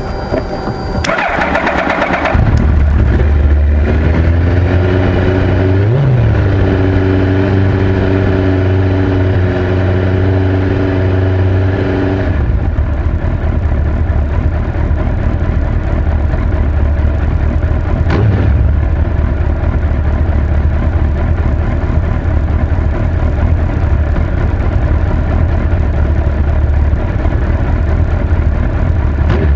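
A motorcycle engine started: a short burst of starter cranking, then the engine catches about two seconds in and settles into a steady idle. It gives one short rev about six seconds in, and the idle note changes near the middle before running on steadily.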